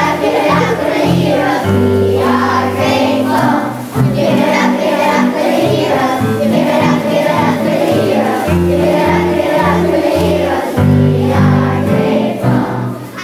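A children's choir singing together over an instrumental accompaniment with a steady bass line.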